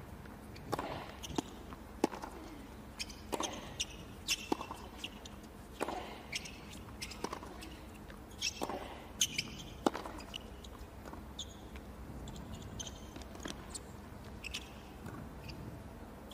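Tennis rally on a hard court: racket-on-ball strikes and ball bounces as sharp pops every second or so, mixed with short squeaks of sneakers on the court.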